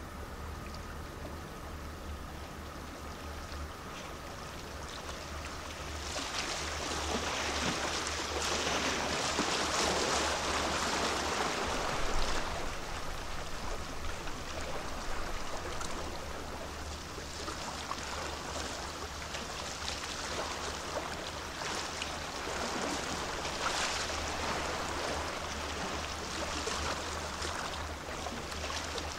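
Water rushing and splashing in the wash of the cruise ship MSC Poesia as it glides past close by, swelling about six seconds in and easing after about twelve seconds, over a low steady hum.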